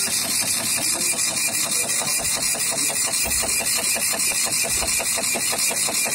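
9-pin serial impact dot-matrix receipt printer printing continuously: the print head rasps along each line while the paper feeds, in a fast, even rhythm.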